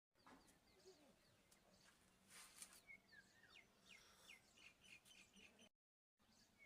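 Faint bird chirps: a series of short, quick calls dropping in pitch, over a faint low hum. The sound cuts out completely for about half a second near the end.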